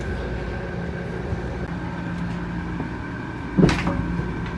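Steady low machine hum with a faint high whine, broken by a short clatter about three and a half seconds in.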